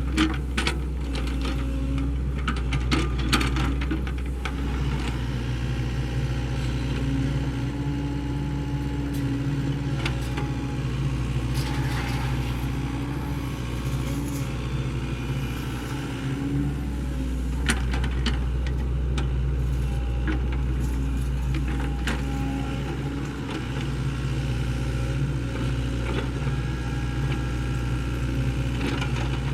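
Sany SY75C excavator's diesel engine running steadily under work, with scattered sharp clicks and knocks.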